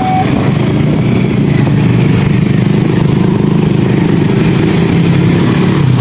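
Train passing the level crossing up close: a steady low engine hum under loud rolling noise. The crossing's two-tone warning signal cuts off just after the start.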